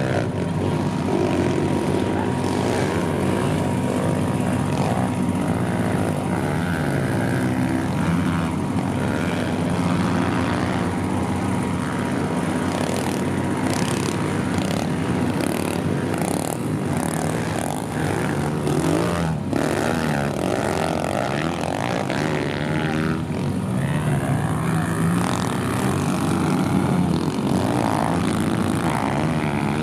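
Several 140cc pit bikes racing, their small single-cylinder engines revving up and down with the throttle as they ride the track.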